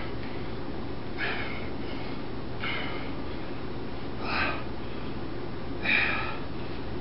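A man breathing out hard with each seated dumbbell rep: short, forceful exhalations about every second and a half, four in all, the last one loudest, over a steady low hum.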